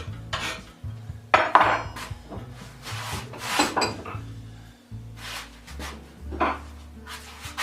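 Hand file rasping across a metal plate in a few strokes, then metal clinks and scrapes, loudest about a second and a half in, as the file and workpiece are handled. Faint music runs underneath.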